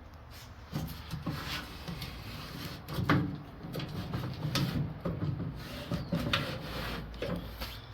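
Door window glass being slid through new window felt, with rubbing and scraping and a few light knocks and clicks.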